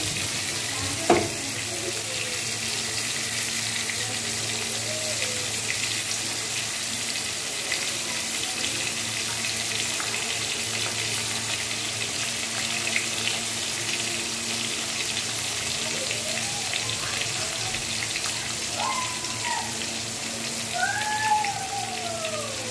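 Pieces of mullet (parse fish) frying in hot oil in a wok, a steady sizzling hiss, with a single sharp click about a second in.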